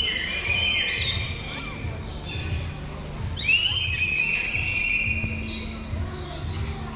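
A flock of birds chirping and whistling together, with loud rising whistled calls about three seconds in, over a low background rumble.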